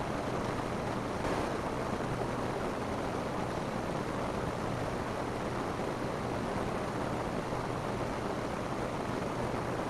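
Steady rain falling on a roof, a dense, even hiss with a brief slightly louder patter a little over a second in.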